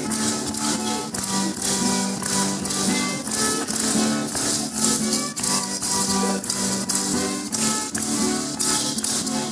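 Matachines dance music: a strummed guitar under a high melody line, with the dancers' hand rattles shaken in a steady beat.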